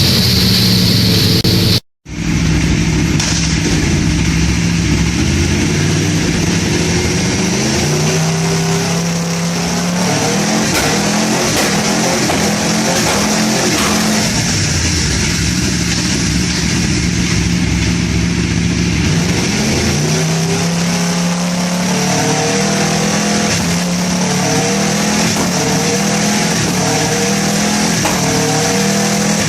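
2011 Aprilia RSV4 R's V4 engine pulling through the rev range again and again with a newly fitted quickshifter, popping on the cut at each clutchless upshift. The sound drops out for a split second about two seconds in.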